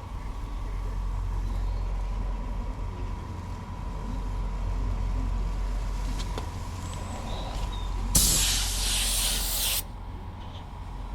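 Compressed-air paint spray gun hissing in one loud burst of about a second and a half, near the end, then cutting off sharply, over a steady low hum.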